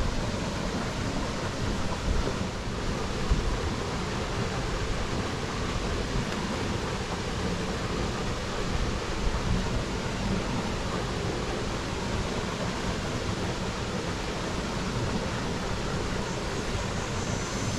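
Steady rushing noise of a shallow river flowing, unbroken for the whole stretch.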